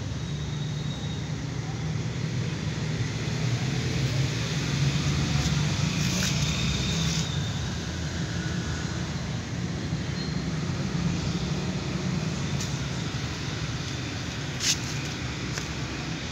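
A steady low rumble like traffic or an engine running, with a few short sharp clicks, the loudest near the end.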